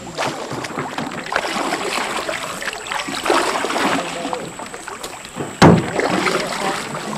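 Canoe paddle strokes splashing and dripping in river water, uneven from stroke to stroke, with one sharp knock, the loudest sound, about five and a half seconds in.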